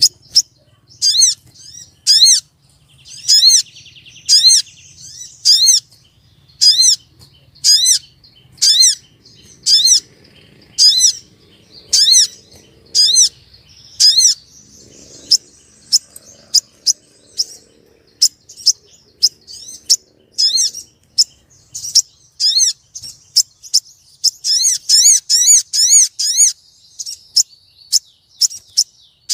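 Female sogon bird calling: a string of short, sharp, high-pitched arched notes about once a second, with a brief buzzy rattle a few seconds in and the notes quickening into rapid runs near the end. It is a female call that draws the male.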